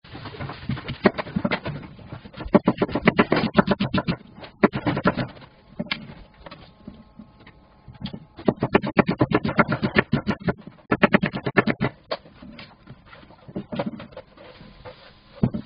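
Kitchen knife slicing a red onion on a wooden cutting board: quick runs of knife strokes hitting the board, several strokes a second, with short pauses between runs.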